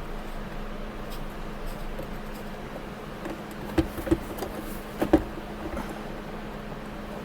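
A few short knocks and clicks of the armrest and its screws being handled and fitted by hand into a Dodge Charger's center console, two near four seconds in and two more a second later, over a steady low hum.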